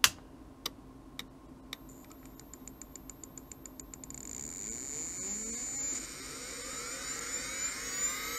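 HP C2490A SCSI hard drive powering up: four sharp clicks in the first two seconds, then a rapid even ticking. About four seconds in, a whine rises steadily in pitch and grows louder as the spindle motor spins up.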